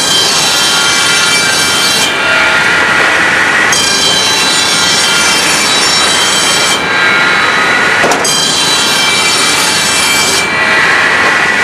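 Saw blade cutting through wooden boards, loud and continuous; the bright high part of the sound switches on and off every two to three seconds.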